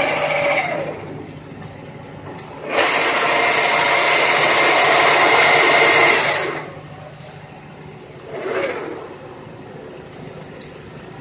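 1K62 metal-turning lathe, freshly overhauled, with its spindle and gearbox running and stopping. The running noise winds down with a falling pitch about a second in, then starts again abruptly and runs about four seconds before cutting off. A brief spin-up that falls away follows near the end, over a steady low hum.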